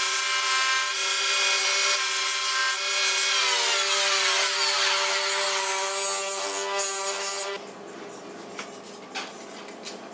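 Bench grinder running with a steady whine while its stone wheel grinds a steel plane iron, a rasping hiss over the motor. About seven and a half seconds in it stops abruptly, leaving light clicks and knocks of handling.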